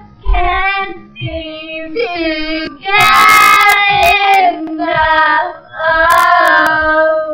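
Girls' voices singing together, slowed right down so the singing sounds low and drawn out, in several phrases that are loudest about halfway through and near the end.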